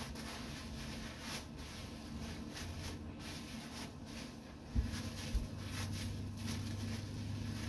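A plastic bag crinkling and rustling as it is twisted and tucked around the head, over a steady low hum. Two dull thumps come about five seconds in.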